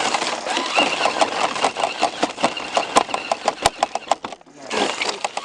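Electric RC rock crawler working over rock: its motor and gears whine, rising and falling with the throttle, against many sharp clicks, with a short lull about four and a half seconds in.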